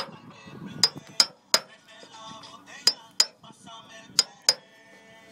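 Claw hammer striking sheet-metal chimney flashing: about eight sharp metallic taps, mostly in quick pairs, each with a short ring.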